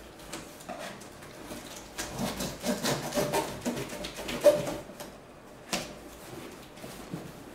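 Box cutter blade slitting packing tape on a cardboard shipping box: a run of scratching and scraping as the blade drags through tape and cardboard, loudest about four and a half seconds in, followed by a sharp click a second later.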